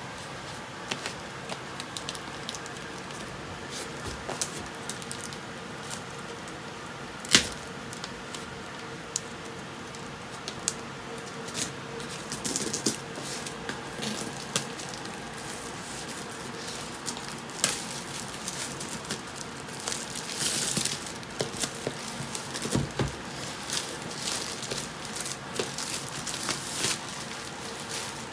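Plastic shrink-wrap crinkling and tearing as it is pulled off a cardboard box: scattered crackles, one sharp snap about seven seconds in, and a longer tearing rasp about twenty seconds in, over a steady background hum.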